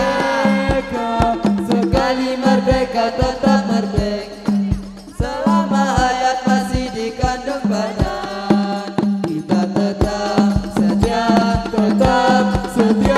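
Hadrah-style ensemble: frame drums beating a steady rhythm, about two low thumps a second, under a group of voices singing, amplified through a mixer with its built-in effect.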